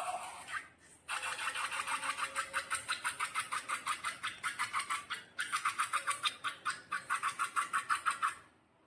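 Slime being squeezed and kneaded by hand, giving quick sticky, crackly squelches about five a second, in two runs with a short break between them.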